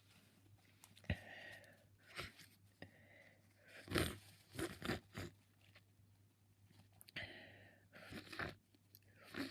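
A person with a head cold sniffling through a stuffy nose: a string of short, sharp wet sniffs, the strongest about four seconds in, with soft breaths about a second in and again about seven seconds in.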